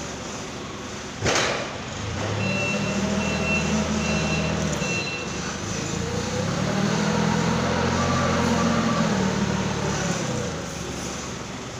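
Forklift engine running and revving up and down as the truck manoeuvres and raises its mast, with four short reversing-alarm beeps a few seconds in. A single sharp knock sounds about a second in.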